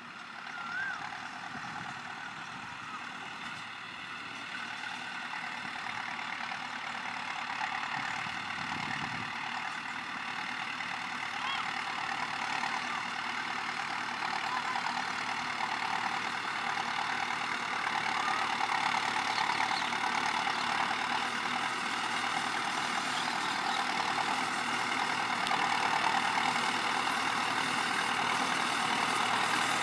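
CLAAS Talos 240 tractor's diesel engine running steadily while it pushes soil with a front dozer blade, growing gradually louder as it comes closer.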